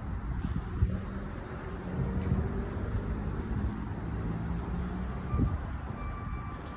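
Low, steady rumble of vehicle traffic, with a faint engine hum rising over it in the middle.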